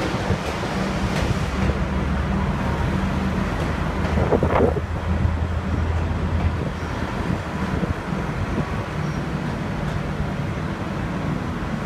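V/Line passenger train rolling past and pulling away from the platform, with a low steady drone and wind noise on the microphone. A short screech comes about four and a half seconds in.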